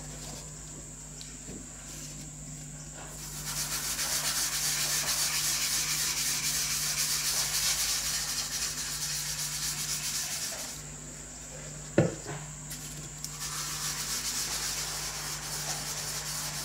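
A linen-covered French-polishing rubber is scrubbed back and forth over a teak board dusted with pumice and wet with shellac, making a gritty rubbing sound. It starts about three seconds in, pauses around eleven seconds, where there is a single sharp knock, then resumes. The pumice is being ground into the open pores of the wood to fill the grain.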